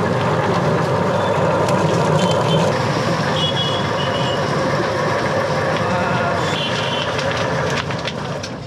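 Stainless-steel rotary drum poultry plucker running with a scalded duck inside, the spinning drum giving a steady, loud churning rumble as it strips the feathers. The noise eases off near the end as the plucking finishes.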